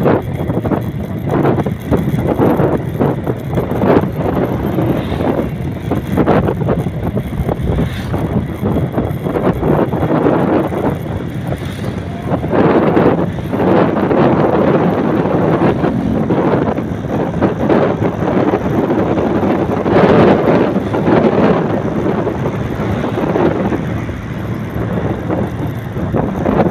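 Wind buffeting the microphone over the road noise of a moving vehicle, swelling and fading irregularly.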